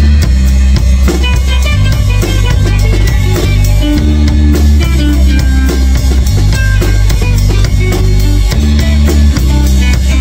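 A rock band playing live together: a drum kit keeping a steady beat under electric and acoustic guitars, with sustained low notes.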